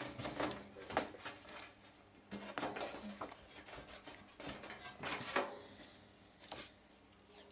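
Scattered light clicks, taps and knocks of hands working inside a metal PC case, busiest a couple of seconds in.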